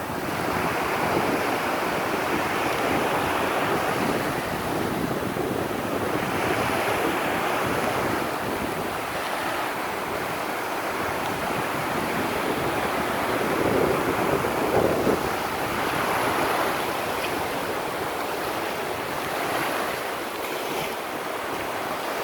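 Surf breaking and washing on a beach, swelling and easing every few seconds, with wind buffeting the microphone.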